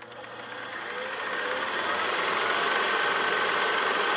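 Vintage film projector sound effect: a steady mechanical clatter with film hiss that fades in over the first couple of seconds, then holds level, with a few faint crackle clicks.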